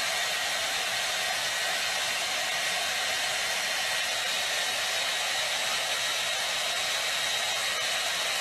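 A steady, loud rushing noise like a hair dryer or fan, with a faint steady whine in it, cutting off suddenly near the end.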